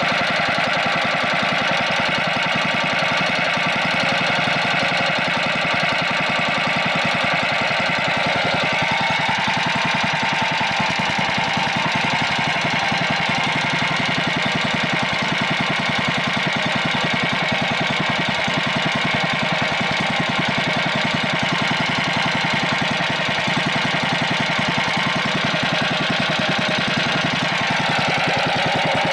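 Freshly reassembled Lifan 20 hp single-cylinder OHV petrol engine running steadily at a constant speed, with fast, even firing pulses.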